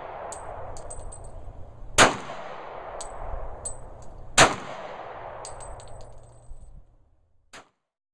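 Two gunshots about two and a half seconds apart, each followed by a long rolling echo that dies away.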